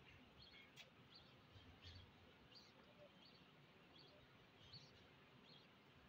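Faint, short high chirps from pet budgerigars, repeating evenly about every 0.7 s, with one brief click just under a second in.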